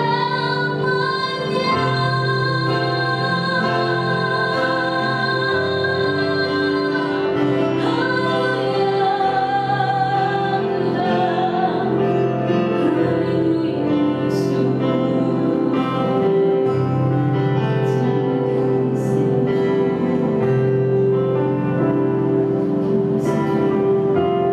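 Live acoustic worship music: a woman sings slow, long-held notes into a microphone over keyboard and acoustic guitar accompaniment.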